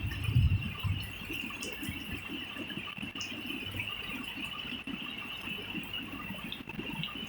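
Thunderstorm rain and wind gusts buffeting, with an uneven low rumble and patter that is strongest about half a second in. A steady high-pitched hum runs behind it.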